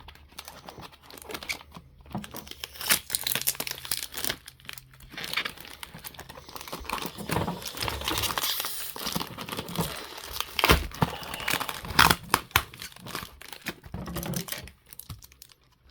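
Packaging being crinkled and torn open by hand, a dense run of irregular crackling and ripping.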